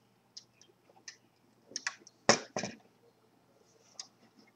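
Light plastic clicks and taps from a Lego Batwing model being handled, with a louder clatter of knocks about two seconds in as it is set down on a tabletop.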